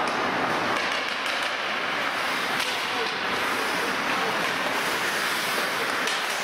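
Ice hockey in play: the steady scraping hiss of skates on the ice, with scattered clicks of sticks and puck, and some voices.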